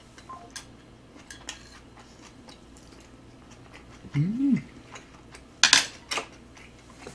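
Chopsticks and utensils clicking and tapping against bowls and dishes while eating. A short low hum rises and falls a little after four seconds, and a louder clatter comes just before six seconds.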